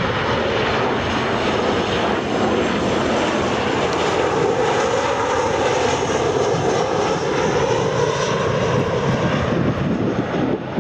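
Jet engines of a KLM Boeing 737-700 (CFM56-7B turbofans) on approach to land with gear down, flying close past: a steady, loud jet rumble.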